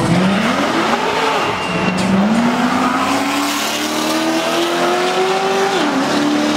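Drag-race cars (a Corvette against a Mustang) launching down the strip. An engine's pitch climbs steadily, drops at an upshift about a second and a half in, climbs again, and shifts once more near the end.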